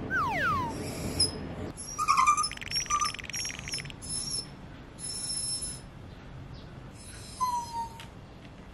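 Miniature dachshund whining while left alone: a falling whine at the start, high squeaky cries over the next few seconds, and a short falling whimper near the end.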